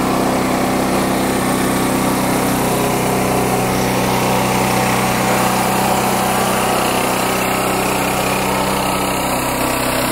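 Stanley All Weather 5000 portable generator's engine running at a steady speed.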